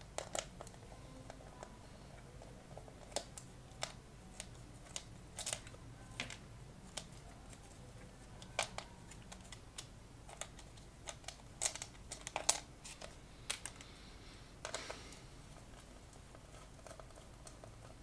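Faint, irregular clicks and taps of hand tools and small metal and plastic parts being handled during a teardown, with a short scrape or rustle about fifteen seconds in.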